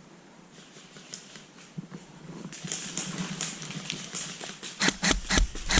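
Rustling movement, then from near the end a rapid run of sharp clacks, about six a second, typical of an airsoft rifle firing quick shots.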